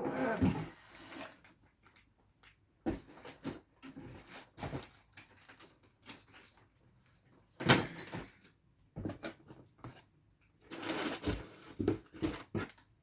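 Scattered knocks and rustles from handling things, in short irregular bursts with quiet gaps between them, the loudest about eight seconds in and again near the end.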